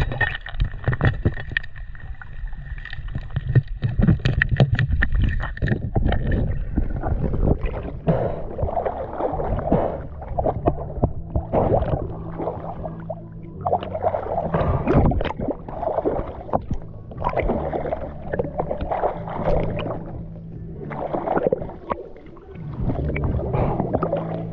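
Water sloshing and splashing around a camera held at the surface as a swimmer strokes through the water, coming in irregular surges. A steady high whine sounds through the first several seconds.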